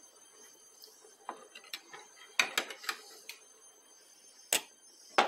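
Scattered light clicks and knocks of kitchen items being handled: a cluster of quick clicks about two and a half seconds in, then two sharper single knocks near the end.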